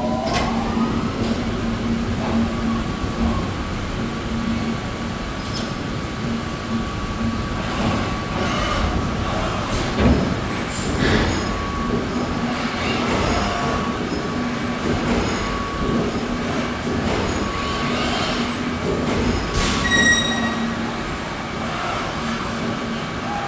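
Industrial robot arms on a car-body welding line moving, their servo motors whining in steady on-and-off tones over a loud mechanical hum. A rising whine in the first second, and a few sharp clanks around the middle and near the end.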